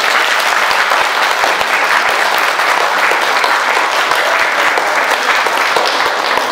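Audience applauding: many hands clapping, steady and even.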